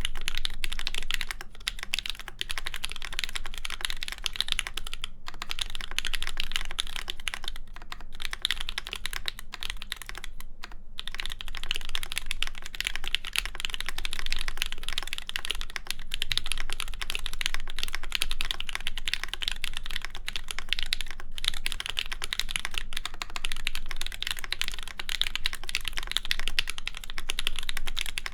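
Steady, fast typing on a mechanical keyboard: an ai03 x PrimeKB Meridian with a full aluminum plate, GMK keycaps and JWK Ms Piggy linear switches lubed with Krytox 205g0. There are a few brief pauses in the keystrokes.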